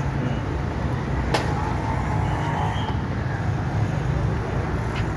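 Steady low rumble of road traffic and vehicle engines from the street, with one sharp click about a second and a half in.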